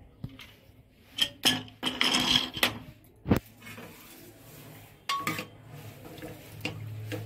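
Aluminium pressure cooker lid being lifted off with metallic clanks, with a sharp knock a little over three seconds in, then a metal ladle clinking and scraping against the cooker as the cooked curry is stirred.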